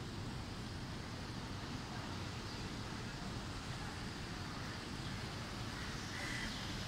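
Heavy rain falling in a steady, even hiss, with a low rumble underneath.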